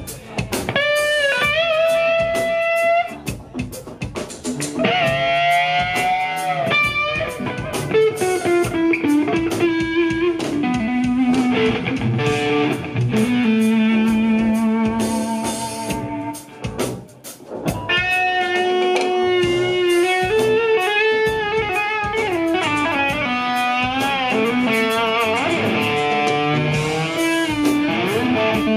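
Live lead electric guitar from a Telecaster-style guitar through an amp, playing sustained melodic lines with string bends and vibrato. It pauses briefly about four seconds in and again past the halfway point.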